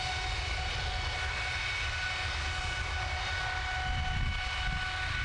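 GE90-115B high-bypass turbofan running at full power on a test stand during a triple-redline run, with fan speed, core speed and exhaust temperature at their limits. A steady low rumble with several steady whining tones above it, holding constant.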